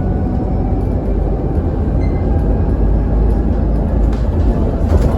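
Interior ride noise of an Alexander Dennis Enviro400 double-decker bus on the move: a steady, loud low engine and road rumble with a faint high turbo whine over it.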